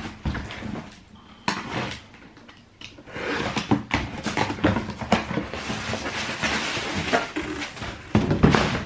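Plastic packaging rustling and crinkling as a wrapped parcel is handled, after a couple of knocks in the first two seconds.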